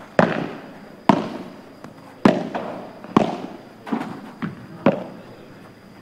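Padel ball hit back and forth with rackets in a quick rally. About five loud, sharp pops come roughly a second apart, each ringing briefly, with a few fainter knocks of the ball in between.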